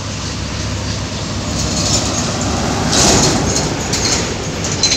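Road traffic: a vehicle passes close by, swelling to its loudest about three seconds in and fading, over a steady low engine hum.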